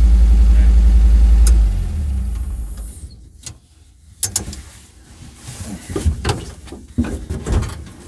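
The Kaiser Jeep M715's swapped-in V10 idles with a steady low pulse, then shuts off less than two seconds in and runs down within about a second. After that come scattered knocks and clatters inside the cab.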